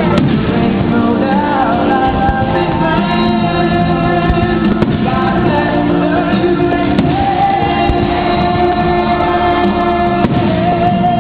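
Music with singing, played loud and steady, with a few sharp pops of fireworks bursts heard under it.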